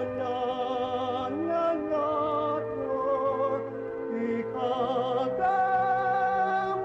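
Music: a singing voice holding long notes with vibrato over sustained instrumental accompaniment.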